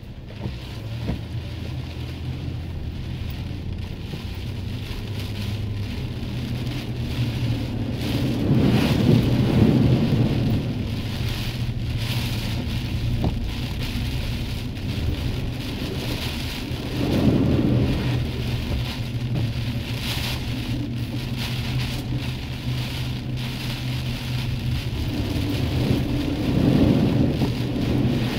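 Heavy rain during a thunderstorm, a steady wash, with low rumbles of thunder swelling up three times: about a third of the way in, past the middle, and near the end.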